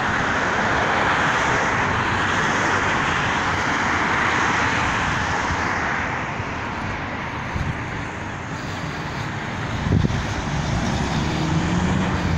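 Road traffic passing through an intersection: a steady rush of vehicle noise, loudest in the first half. Near the end a vehicle's engine rises in pitch as it pulls away.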